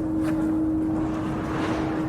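A church bell's lingering hum rings on steadily over a low rumble, with a rush of noise swelling near the end.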